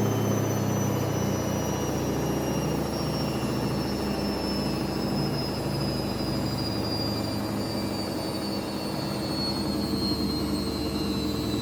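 Washing machine running its spin cycle: a steady low hum with a high motor whine that falls slowly in pitch.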